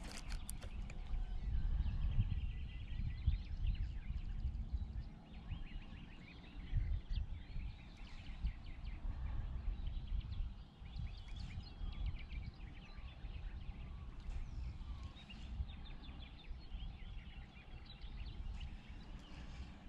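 Small birds chirping and calling repeatedly over an uneven low rumble.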